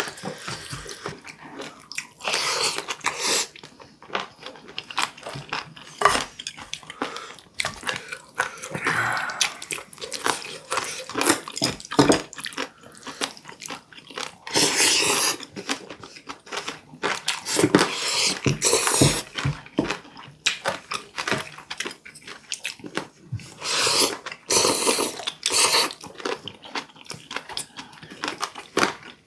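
Close-miked chewing and crunching of warty sea squirt (omandungi), with irregular bites and wet mouth noises coming in bunches, the loudest about a few seconds in, around the middle and near the end.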